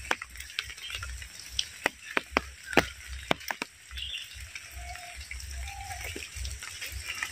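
Rain falling steadily as a hiss, with many separate heavy drops and drips striking sharply, the loudest about three seconds in. Two short low calls come around five seconds in.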